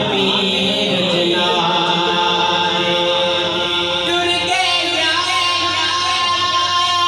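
Voices singing a devotional naat (kalam) without instruments, in long, drawn-out melodic notes, with a new held note taken up about halfway through.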